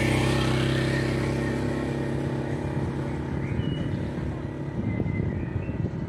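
Large touring motorcycle's engine running steadily as it rides past and away, fading out about five seconds in.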